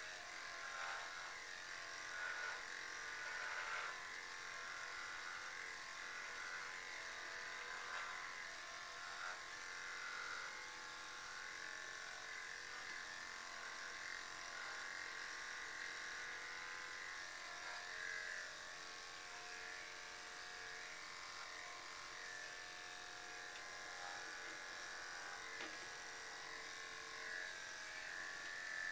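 Corded electric dog clippers running with a steady buzz while shaving through a dog's thick coat, the pitch and level shifting slightly as the blades work through the fur.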